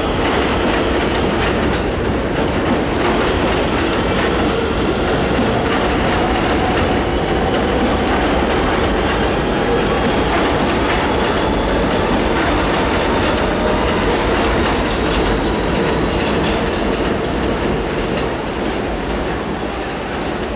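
R160 subway train running on elevated track: steady wheel-on-rail noise with faint clicks and a thin steady whine. The sound falls away near the end as the train moves off.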